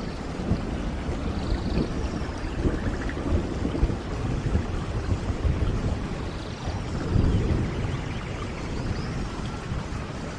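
Steady rain with low, rumbling thunder swelling and fading, most strongly about two-thirds of the way through.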